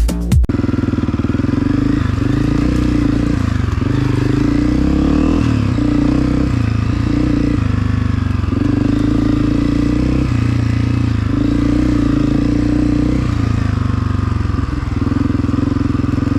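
2022 Honda CRF250F dirt bike's single-cylinder four-stroke engine, breathing through a Pro Circuit exhaust, running under load while being ridden. The engine note climbs and drops again and again, every second or two, with throttle and gear changes.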